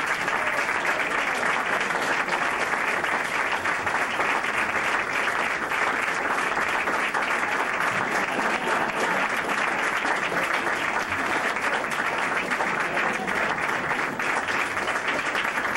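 A roomful of dinner guests applauding: a long, steady round of clapping for an award winner.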